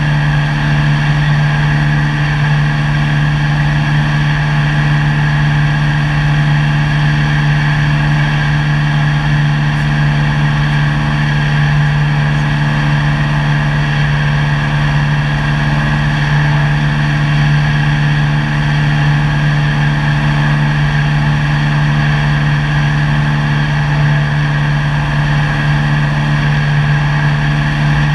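Cessna 172's piston engine and propeller running steadily in flight, heard from inside the cabin: a loud, even low hum that holds one pitch throughout.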